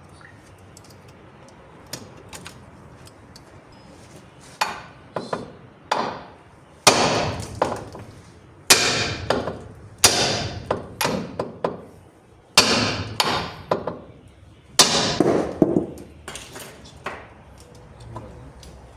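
Hammer striking steel, about a dozen uneven blows, each followed by a brief metallic ring. The heaviest blows come in the middle stretch, typical of knocking out a worn lower ball joint.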